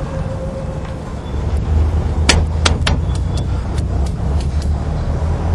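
Steady low rumble of street traffic. From about two seconds in comes a quick run of sharp crackles and rips as a paper poster is torn off a pole.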